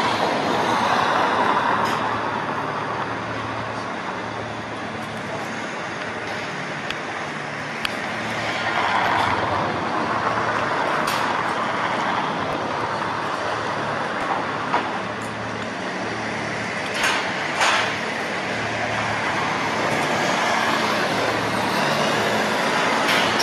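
Road traffic running steadily, swelling and easing as vehicles pass, with two short hisses close together about three-quarters of the way through.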